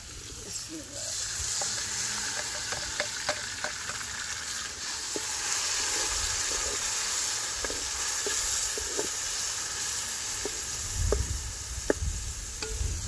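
Diced raw chicken sizzling as it fries in hot oil with garlic in an aluminium pot, the sizzle building about a second in as it is tipped in. A knife blade scrapes and taps against the pot as the chicken is stirred.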